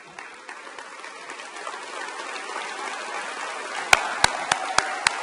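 Audience applause swelling steadily. About four seconds in, sharp hand claps close to the microphone join it, about four a second.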